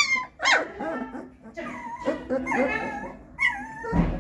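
Doberman puppies crying with a run of short high-pitched whines and yips, with a dull thump near the end.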